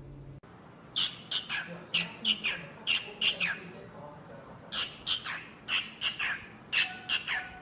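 Pet parrot calling in short, sharp squawks that slide down in pitch, given in quick runs of two or three about once a second.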